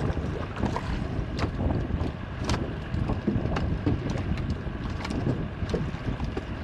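Wind buffeting the microphone and water lapping around a small fishing boat, with a few scattered sharp clicks and taps from the gear.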